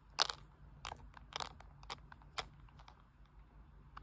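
Handling noise close to a phone's microphone: several short crackly clicks and rustles in the first half, the loudest about a quarter second in, over a faint steady hum.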